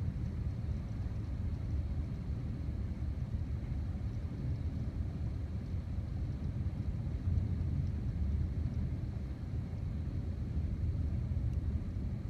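Constant low rumble of distant thunder, like a freight train going by, from near-continuous strobe lightning; it swells slightly a little past the middle.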